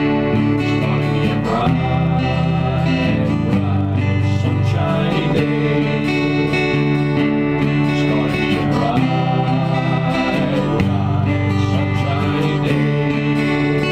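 Background music led by guitar, with a steady level and chords changing every second or two.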